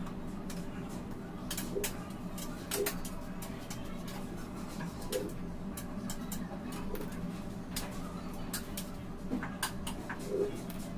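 Light clicks and taps from fondant cake decorations being handled and pressed onto a cake, over a steady background hum, with a few short low sounds every couple of seconds.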